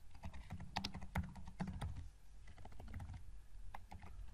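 Typing on a computer keyboard: a run of irregular keystroke clicks as a short line of text is entered.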